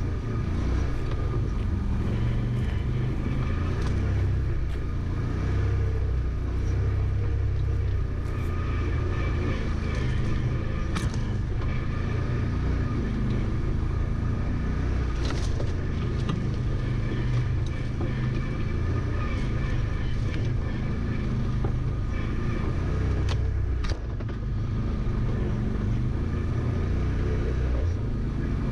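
An engine running steadily with a low rumble, a faint whine above it, and a few light clicks and knocks.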